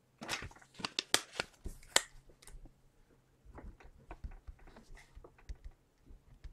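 Quiet rustling and clicking of trading cards being handled, busiest in the first couple of seconds, then a scatter of fainter ticks.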